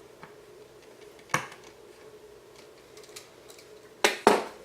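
Small hard parts and tools clattering on a workbench while a racing-drone frame is handled: a knock about a second in, then two louder clacks close together near the end, over a faint steady hum.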